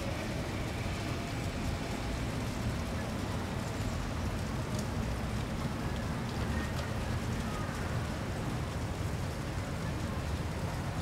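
Steady splashing of a garden fountain's water, over a low outdoor rumble.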